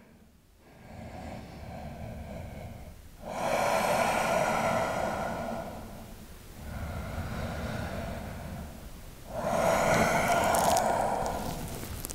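A man breathing slowly and deeply: two long in-and-out breaths, each out-breath louder than the in-breath before it.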